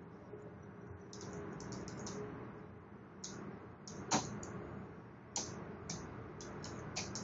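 Computer keyboard keystrokes: a password being typed in short, irregular runs of clicks, with one sharper, louder keystroke about four seconds in.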